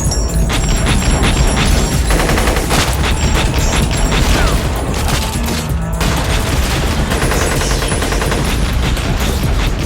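Sustained, dense gunfire from an action-film soundtrack: rapid overlapping shots and impacts over a heavy low rumble, with no let-up.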